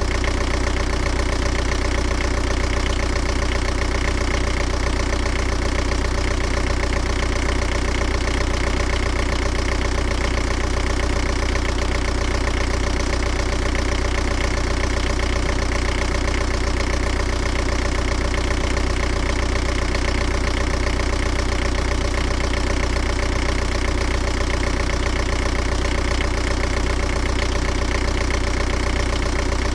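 Diesel engine idling steadily, an even low rumble with a regular beat that does not change.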